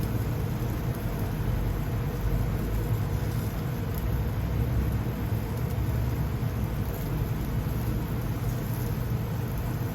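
Steady low rumble of a commercial gas grill running while hamburger patties cook over it, with no change through the stretch.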